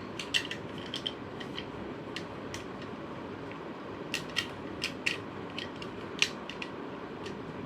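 Simple dimple fidget toy being pressed, its silicone bubbles popping in a string of irregular sharp clicks.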